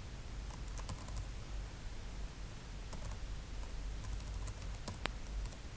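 Typing on a computer keyboard, in short bursts of keystrokes, with one sharper click near the end.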